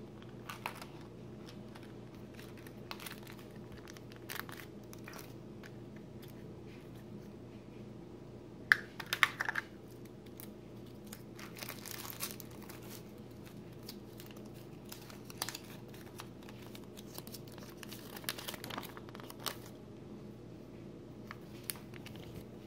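Hands crinkling and tearing a black foil wrapper unwrapped from a plastic toy egg, with scattered clicks of the plastic capsule being handled. A sharp, loud crackle comes about nine seconds in, with longer stretches of crinkling after it.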